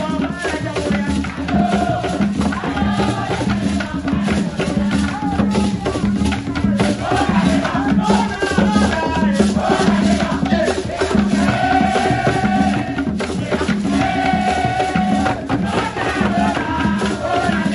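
Live West African drum ensemble: several hand drums keep a steady beat, a shaker rattles along, and a group of voices sings a chant over it, with long held notes partway through.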